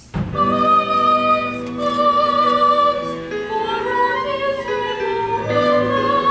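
Operatic stage-musical music: a loud chord strikes at the start, followed by held, wavering notes over the accompaniment.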